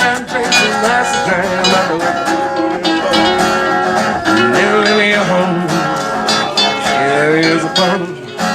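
Acoustic guitar strummed hard and fast in a live song, an instrumental passage with rapid strokes under held chords.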